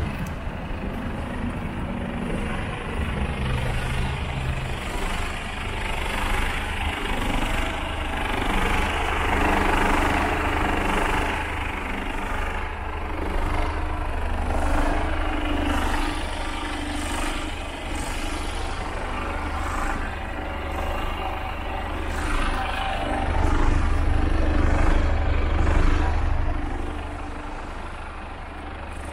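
Mercedes Actros 2545 truck's 450 bhp Euro 5 diesel engine idling steadily, with a low hum that grows louder and fainter as the walkaround moves along the truck, loudest about three-quarters of the way through.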